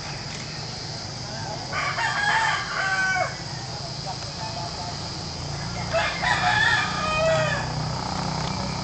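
A rooster crowing twice, each crow about one and a half seconds long and roughly four seconds apart, over a steady background hiss and hum.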